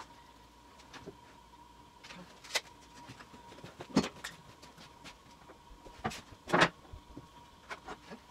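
Scattered knocks and clatter of hands working inside a plywood dresser carcass, around the drawer-slide hardware. The two loudest knocks come about four and six and a half seconds in, over a faint steady whine.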